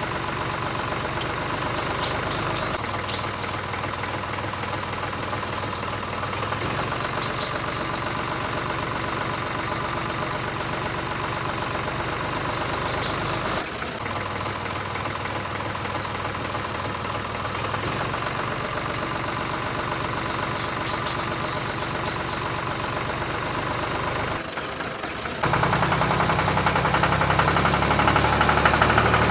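Diesel tractor engine idling with a knock, added over the string-pulled toy. About 25 seconds in it cuts to a louder, harder-running engine.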